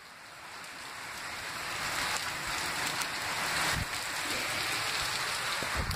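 Steady rain falling hard: an even hiss that swells over the first two seconds, then holds.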